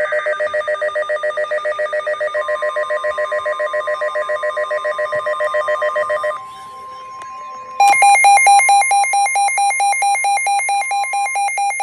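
Electronic emergency alert tones announcing a tornado warning: a fast-pulsing alarm with a steady tone beneath it, then, after a short dip, a louder, rapidly alternating alert tone from about eight seconds in.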